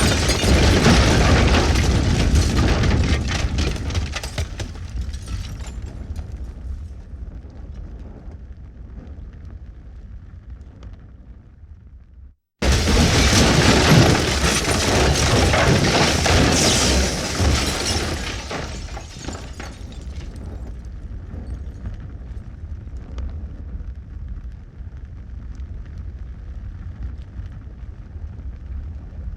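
Two explosion sound effects in a row. The first blast decays slowly with crackling debris and cuts off abruptly about 12 seconds in. A second blast follows at once, and its deep rumbling tail with scattered crackles lasts to the end.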